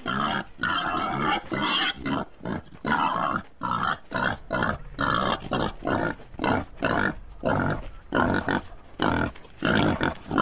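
Wild boar grunting in a rapid series of short calls, about two a second.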